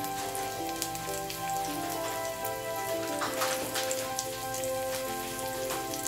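Garlic and onion sizzling in hot olive oil in a stainless steel pan, a steady crackle with frequent small pops, over background music with a slow melody.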